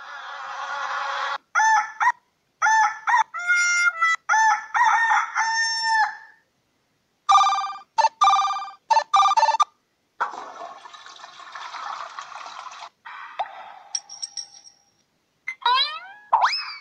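A run of short nature sound-effect clips from an Android sound-effects app, played one after another with brief gaps. They include stretches of hissing noise, two series of pitched animal calls, and quick rising whistled glides near the end.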